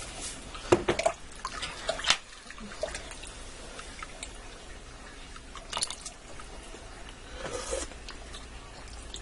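Metal spoon working in broth in a pressure cooker's inner pot: a handful of sharp, scattered clinks with small liquid sounds between them.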